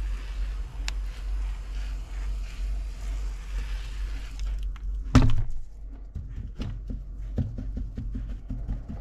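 Hand pressure sprayer hissing as it wets a tray of sown celery seed, stopping after about four and a half seconds. A single loud thunk comes next, as the sprayer is set down. Then a gloved hand pats the wet seed-starting soil in a quick run of soft knocks.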